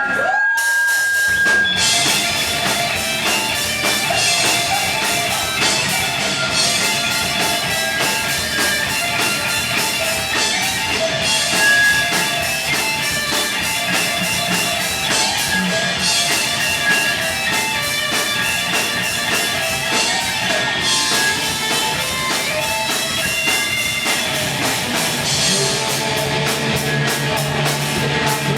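Heavy metal band playing live: distorted electric guitars over a fast, steady drum-kit beat. The full band comes in about a second in.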